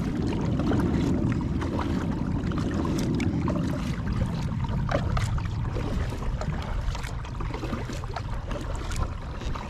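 Kayak paddling on calm canal water: irregular small splashes and drips from the paddle strokes. A low rumble is strongest in the first four seconds, then fades.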